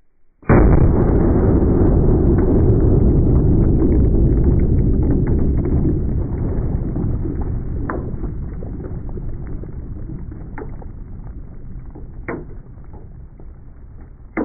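A revolver shot into a ballistic dummy head, heard slowed down: a deep boom about half a second in that rumbles on and fades slowly over more than ten seconds. A few short sharp cracks come through near the end.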